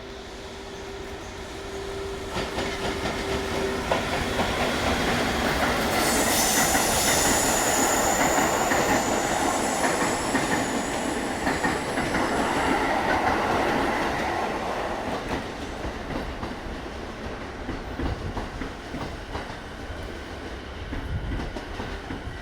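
JR EF81 electric locomotive hauling a five-car E231 series EMU set past at speed: wheels clattering over rail joints, the sound building, peaking in the middle with a brief high wheel squeal, then fading as the train goes by.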